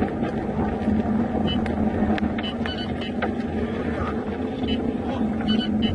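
Steady road and engine noise of a car driving at highway speed.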